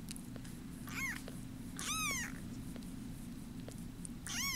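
Tiny bottle-baby kittens mewing: three short, high mews, each rising then falling in pitch, about a second in, about two seconds in and near the end, over a low, steady purr with faint little clicks.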